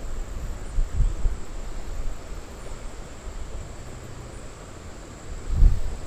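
Wind buffeting the microphone outdoors, with low rumbling gusts about a second in and again near the end over a steady faint hiss.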